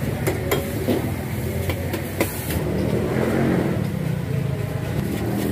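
Busy street-food stall din: a steady low rumble with sharp clinks and knocks of metal ladles and pots now and then, swelling a little about three seconds in.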